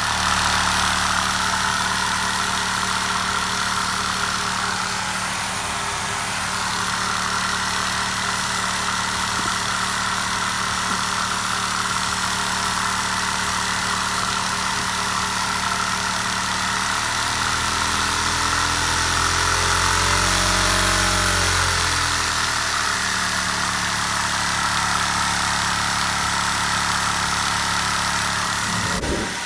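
A Lego vacuum engine running steadily at nearly full throttle on a vacuum cleaner's suction, set to low power, during break-in, with a hiss of rushing air over the drone. About two-thirds of the way through, its pitch briefly rises and then falls back.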